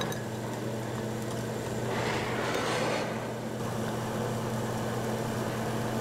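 Steady low machine hum throughout, with a brief rustling scrape about two seconds in.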